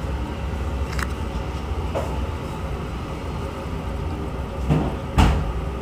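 Desktop PC just switched on with its new 650-watt power supply, fans running as a steady low hum. A few light clicks come through, then a sharper knock near the end.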